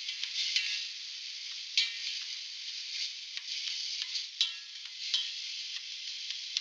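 Diced onion and garlic sizzling in hot olive oil in a stainless steel pot, sautéing. A wooden spoon stirs and scrapes against the pot with a few irregular knocks, each making the pot ring briefly.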